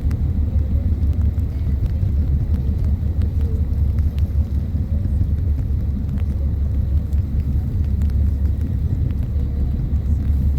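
Steady low rumble of a whale-watching boat's engine running.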